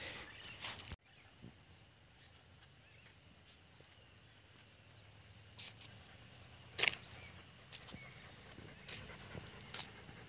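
Quiet outdoor evening ambience with faint, regularly repeating high insect chirps, broken by a few sharp clicks, the loudest about seven seconds in. The sound cuts out for an instant about a second in.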